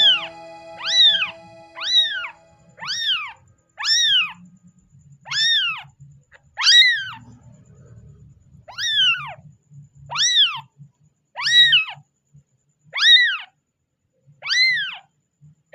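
Kitten meowing over and over, about a dozen high-pitched meows spaced a little over a second apart, each rising and then falling in pitch: a fussy, crying kitten.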